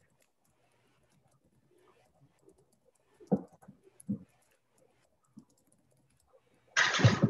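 Soft, scattered taps and knocks of typing on a computer keyboard, two a little louder a few seconds in, then a short, loud burst of hiss-like noise near the end.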